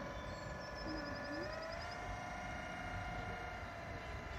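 Whine of a radio-controlled model boat's electric motor, running steadily, rising in pitch about a second and a half in as the throttle opens and dropping again near the end.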